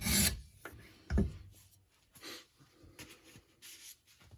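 Coarse 120-grit Edge Pro stone rasping along a knife's 154CM steel edge, ending just after the start, then one short louder scrape about a second in and a few faint taps and rubs as the sharpening stops to check the burr.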